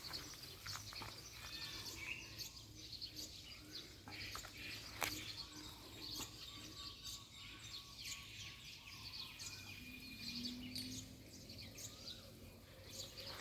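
Outdoor ambience with small birds chirping and twittering over a faint steady low hum. A few sharp clicks come through, the loudest about five seconds in.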